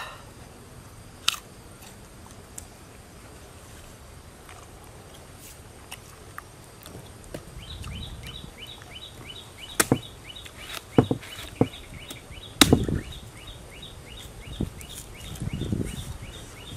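A knife cutting into a fresh palm heart, with several sharp cracks as slices split off, the loudest about ten and thirteen seconds in, and a few dull thumps. From about seven seconds in, a short high chirp repeats about three times a second in the background.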